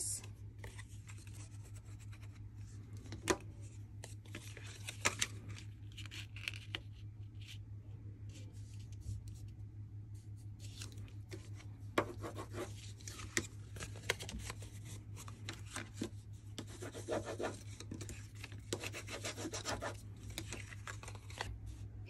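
Sheets of cardstock being handled, folded and pressed flat by hand: soft rubbing and rustling with scattered small taps, over a steady low hum.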